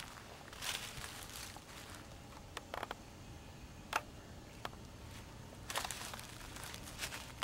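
Footsteps crunching and crackling through dry fallen leaves, coming as a few irregular steps with short pauses between them.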